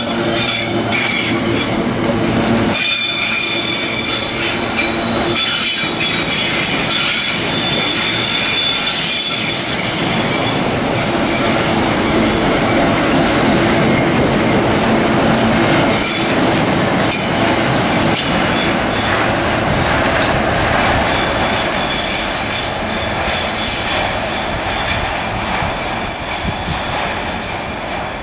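Freight train wagons, container flatcars and boxcars, rolling past close by: a steady loud rumble of steel wheels on rail, with a high-pitched wheel squeal running over it and a few knocks from the wheels and couplers.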